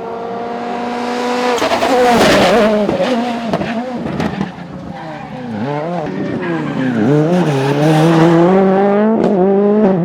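A World Rally Car's turbocharged four-cylinder engine driven hard through a stage. It swells in level, then the pitch drops and climbs several times in quick succession as the driver lifts and shifts. After that it rises steadily under acceleration, with a sharp crack near the end.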